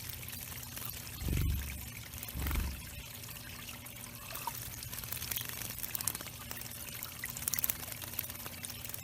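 Water trickling and pouring steadily into a backyard bird pond. Two dull low thumps come about one and a half and two and a half seconds in.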